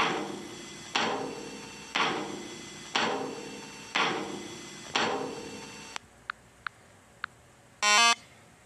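A pitched sound struck six times, one a second, each starting sharply and fading away, followed by three faint ticks and a short, loud buzz near the end.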